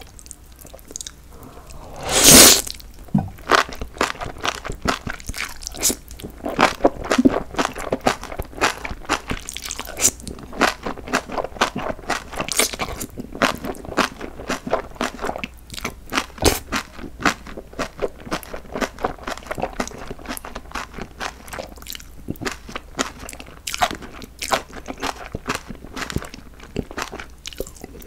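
Close-miked eating of spicy jjolmyeon (chewy Korean cold noodles) with bean sprouts: wet, crunchy chewing with many irregular crackly bites. A loud slurp of noodles comes about two seconds in.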